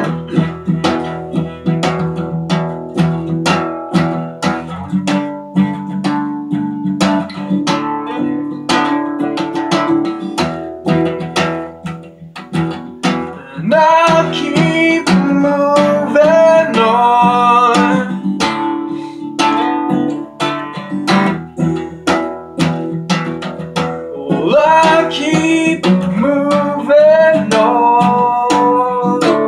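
Acoustic guitar strummed in a steady rhythm, with a man's voice singing over it twice: once about halfway through and again near the end.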